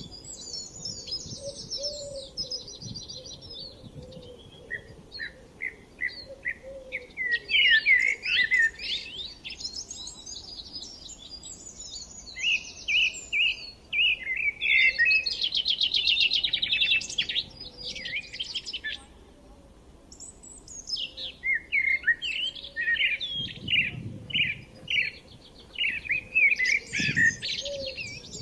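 Several songbirds singing and chirping in overlapping bouts of quick trills and warbled phrases, with a brief lull about two-thirds of the way through. A couple of soft low thuds sound near the end.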